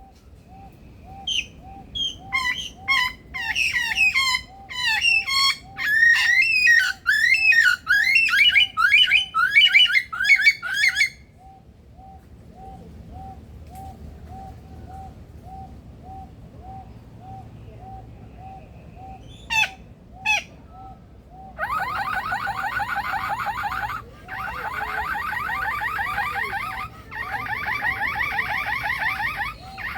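Male superb lyrebird singing a rapid run of varied mimicked whistles and chirps, then from about two-thirds of the way in a loud, fast-warbling imitation of a car alarm. A soft tone pulses about three times a second under the first part.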